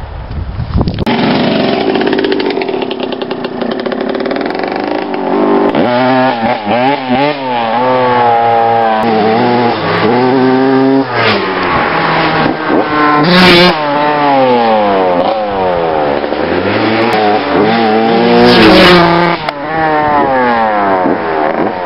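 Vintage two-stroke motocross bike engine revving hard and shifting up through the gears, its pitch climbing and then dropping with each shift, over and over.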